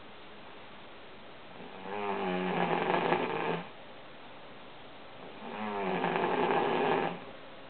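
A sleeping woman snoring: two long snores about three and a half seconds apart, each opening with a wavering pitched rattle that turns into a noisy rasp.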